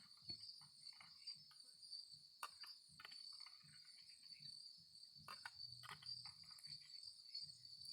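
Faint, steady high-pitched drone of a cicada singing, with a few scattered faint clicks.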